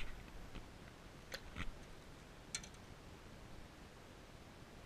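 A few light, sharp clicks and taps from handling an aquarium lid and a fish-flake container during feeding, spread irregularly over a few seconds, with a low background hum between them.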